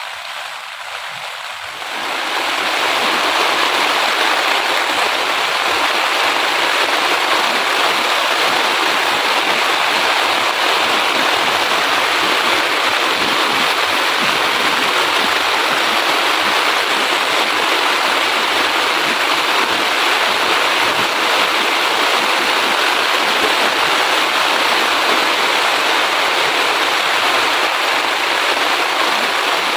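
Steady rain falling, an even, dense hiss that steps up sharply in loudness about two seconds in and then holds steady.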